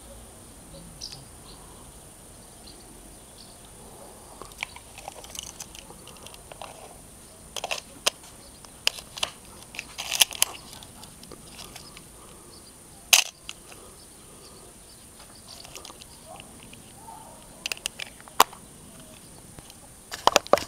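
Irregular sharp clicks and small knocks from a Canon FD 50mm f/1.8 lens and a Canon AV-1 35mm SLR body being handled, as the lens is fitted to the camera and its cap put on.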